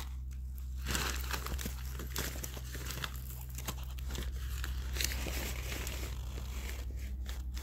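Plastic bag and paper crinkling and rustling irregularly as they are handled and wiped against a wheelchair's push rim.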